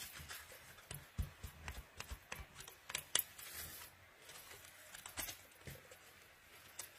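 Paper and cardstock being handled: light rustling with scattered small taps and clicks as die-cut paper pieces are arranged on a card and the card is pressed flat, the sharpest tap about three seconds in.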